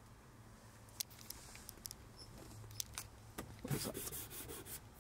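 Scattered light clicks, then a burst of rustling and clicking about three and a half seconds in: handling noise inside a car's cabin.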